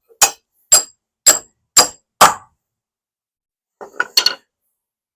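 Five ringing hammer blows on metal, about two a second, followed near the end by a short clatter of metal clinks.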